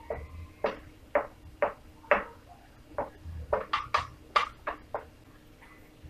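Wooden spatula knocking and scraping against a stainless steel skillet while stirring melted sugar, a sharp tap about every half second, coming faster and closer together a little past halfway.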